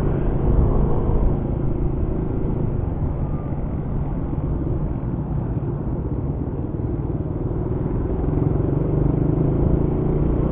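Motorcycle engine running steadily while riding in traffic, heard from the bike itself, under a constant rush of road and wind noise. The engine note grows a little louder near the end.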